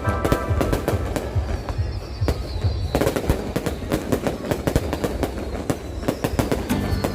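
Fireworks going off in a dense, rapid run of bangs and crackles over a steady low rumble, with a faint high whistle in the middle.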